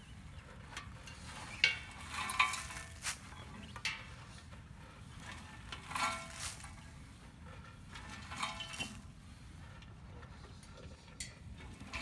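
Rustling and light scraping as a gloved hand pulls shredded leaves and twigs out of a wood chipper's metal discharge chute: scattered short clicks and scrapes, a few louder ones.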